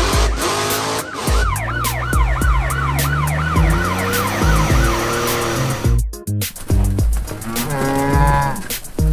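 A police siren wails up and down in quick cycles, about three a second, over background music with a steady beat. About eight seconds in, it gives way to a cow mooing.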